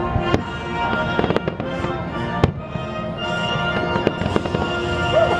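Aerial fireworks shells bursting in a string of sharp bangs, about one every second, over continuous music.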